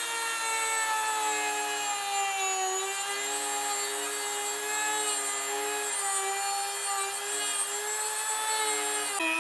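Dremel-type rotary tool cutting a slot, its high motor whine running steadily and sagging and wavering in pitch as the bit bites into the material.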